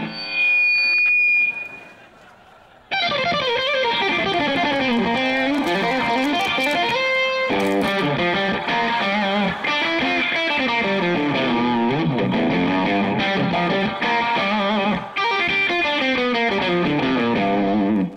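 A distorted electric guitar through a small combo amp plays a fast rock lead with bending notes, starting about three seconds in and running on. Before it, a loud steady tone from the amp sounds briefly as it is turned on.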